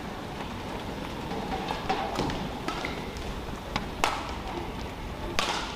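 Badminton doubles rally: rackets smacking the shuttlecock in a quick exchange of sharp hits, the loudest two near the end, with brief shoe squeaks on the court over steady arena background noise.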